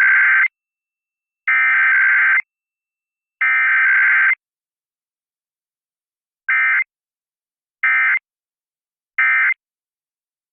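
Emergency Alert System data tones from a radio test broadcast: three harsh, buzzing digital header bursts about a second each, then, after a short gap, three brief end-of-message bursts. No long attention tone comes between them.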